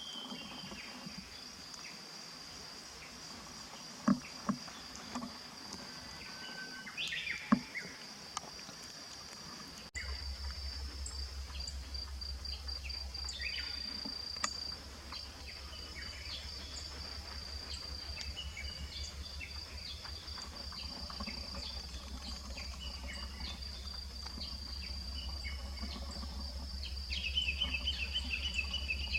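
Insects trilling on one steady high note that pulses in places. There are a few sharp knocks and short falling chirps in the first eight seconds. A low hum starts suddenly about ten seconds in, and near the end a second, lower rapid trill joins.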